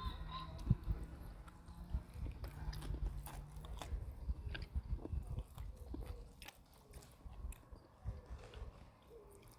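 Someone eating close to the microphone: biting and chewing, with scattered small clicks and rustles that thin out over the last few seconds.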